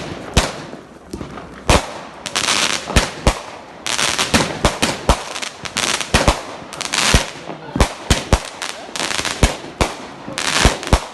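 Fireworks going off: a string of sharp bangs, with several bursts of dense crackling in between.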